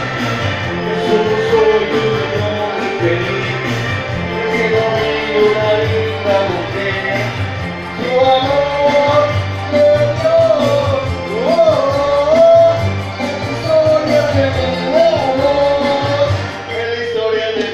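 A man singing into a microphone over loud amplified music with a steady bass beat; the sung melody becomes louder and more ornamented, with sliding notes, about halfway through.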